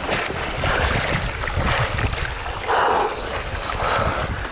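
Wind buffeting the microphone over splashing and sloshing in shallow water, with several rougher splashes, the loudest about three seconds in.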